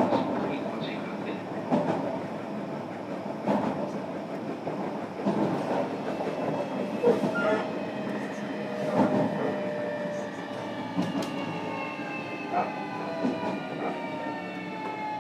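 Inside a JR Kyushu 305 series motor car on the move: a steady running rumble with wheels clacking over rail joints. From about ten seconds in, the whine of the Toshiba permanent-magnet synchronous traction motors comes in as several tones that fall steadily in pitch together, the sign of the train slowing.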